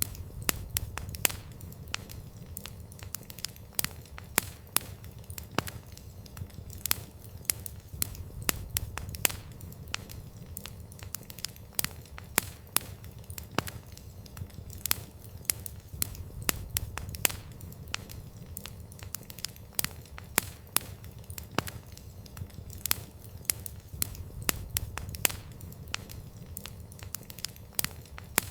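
Wood campfire crackling: sharp, irregular pops and snaps of burning wood, several a second, over a steady low rumble of the flames.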